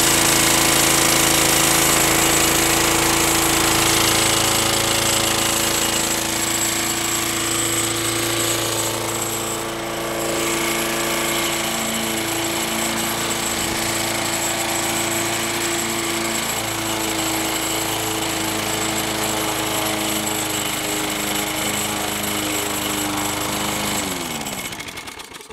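Lawn mower engine running steadily on gasoline vapor from a bubbler vaporizer, then slowing and dying near the end as its vapor line slips down out of place.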